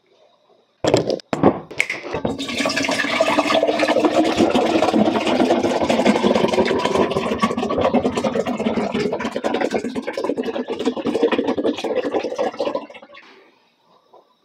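Shine Muscat grape juice poured from a 1.5 L plastic bottle into a tall glass in a steady stream lasting about ten seconds, then stopping. A few sharp clicks come just before the pour starts.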